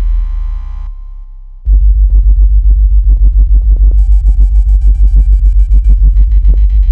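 Synthesised water-ejection tone for earbud speakers: a very deep bass that drops briefly to a quieter low hum, then comes back loud about two seconds in, pulsing about seven times a second. Steady higher tones are layered on top for a couple of seconds in the middle. It is designed to vibrate water out of earbud drivers.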